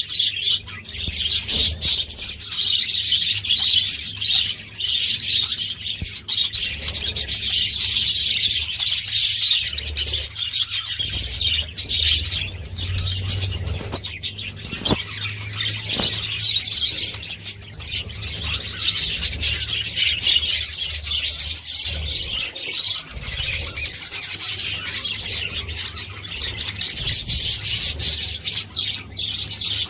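A flock of budgerigars chattering and warbling without pause, a dense mass of quick chirps, over a low steady hum.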